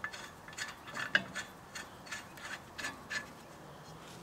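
A bolt being threaded by hand into a steel bracket under a truck: a run of small metallic clicks and scrapes that stops about three seconds in.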